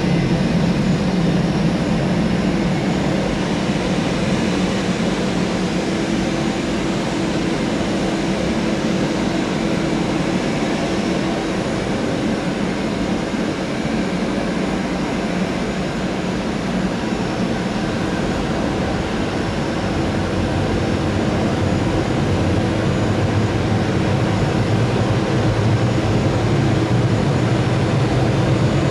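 Steady jet airliner noise from an Airbus A320-214 during pushback by a tug: a constant rushing hiss with a faint whine and rumble. A low hum grows louder over the last several seconds.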